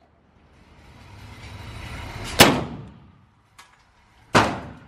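Two shots from a Glock 40 10mm pistol, about two seconds apart, each a sharp crack trailing off briefly. A soft rising rush of noise builds up to the first shot.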